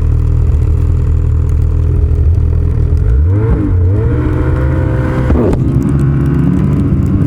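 Snowmobile engine running under way, climbing in pitch about three seconds in as it speeds up, with two quick dips and recoveries in pitch as the throttle is eased off and back on.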